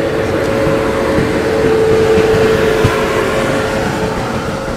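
Electric-locomotive-hauled passenger train rolling past close by on the next track. Its rumble swells to a peak about two seconds in and eases off, over a steady hum.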